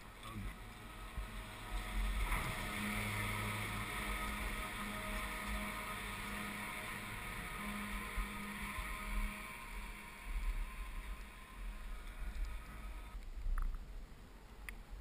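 Skis sliding over snow, with wind rumbling on the camera's microphone: a steady hiss that swells about two seconds in and drops back near the end.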